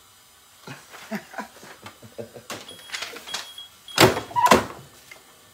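Peeled-off DTF transfer film sheet rustling and crinkling as it is handled, with two loud crinkles about four seconds in.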